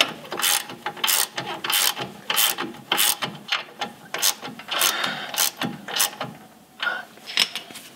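Hand ratchet wrench clicking in quick, irregular strokes, about two or three a second, as it tightens the lower mounting bolt of a rear shock absorber against its rubber bushing. The strokes thin out near the end.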